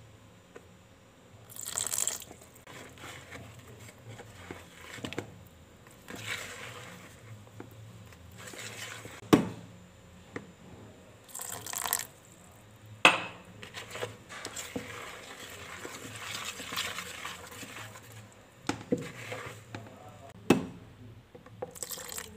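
Wire whisk stirring pancake batter in a plastic mixing bowl, with sharp clinks and knocks against the bowl and short splashy pours of liquid from a small plastic cup.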